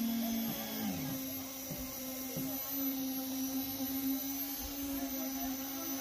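Concrete needle (poker) vibrator running with a steady hum while being worked in fresh slab concrete; its pitch dips briefly a few times in the first couple of seconds, then settles slightly higher.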